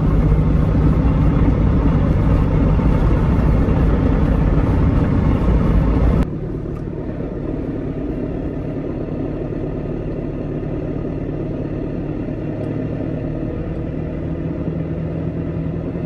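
A car driving, heard from inside the cabin: a steady engine and road drone. About six seconds in it drops suddenly to a quieter, duller hum.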